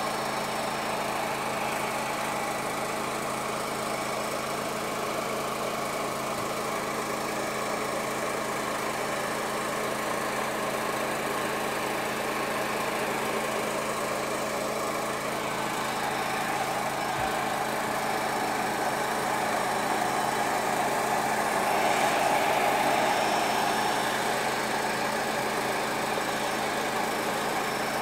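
A paint sprayer's motor running steadily under the hiss of paint being sprayed, a little louder about three quarters of the way through.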